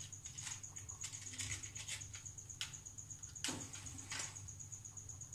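A gas stove burner being lit: a series of sharp clicks, irregularly spaced, the two loudest a little after three and a half seconds and near four seconds. A faint steady high whine runs behind them.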